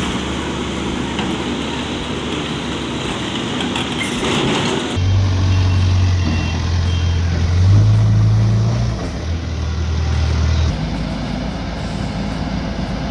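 Heavy diesel excavator and backhoe engines working, with a steady mechanical din. About five seconds in, a deep engine drone comes in loud, goes up in pitch for a moment near eight seconds as it is revved, and drops away at about eleven seconds.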